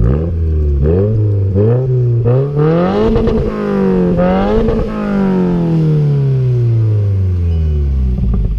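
Subaru WRX's turbocharged flat-four heard through a Tomei catback exhaust, revved in several quick blips, then held higher for a couple of seconds before the revs slowly fall back to idle.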